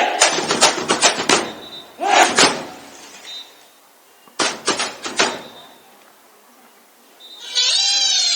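Karate demonstration: sharp cracks and slaps in three quick bursts, the first two opening with a short shout. Music comes in near the end.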